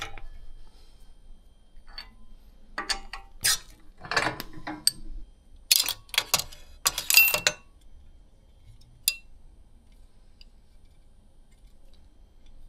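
Steel AK receiver and riveting-jig parts clinking and knocking together as the receiver is pulled out of the rivet tool: several clusters of metal knocks, then a single click later on.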